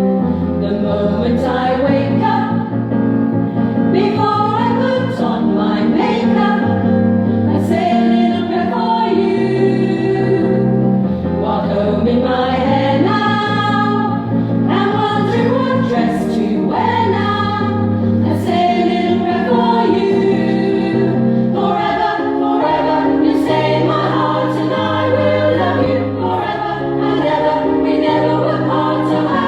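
A women's choir singing a song together, over an accompaniment whose low bass notes change about every two seconds.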